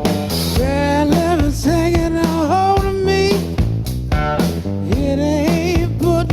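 Live blues-rock song: a male singer holding long notes with vibrato and bends, over electric guitar, bass and drums.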